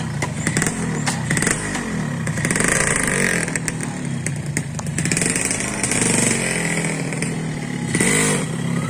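Yamaha RX-King motorcycle's two-stroke single-cylinder engine running and being revved up and down as the bike moves off. There is a louder rev about eight seconds in.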